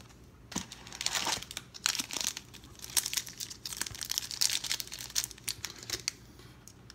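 Foil wrapper of a 1992 Pro Set football card pack crinkling and tearing in the hands, a run of irregular crackles.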